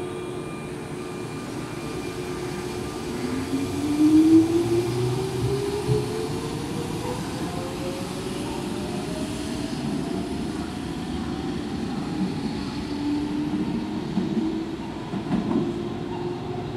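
Electric commuter train pulling away, the whine of its traction motors rising steadily in pitch as it gathers speed over the rumble of the cars. It is loudest about four seconds in.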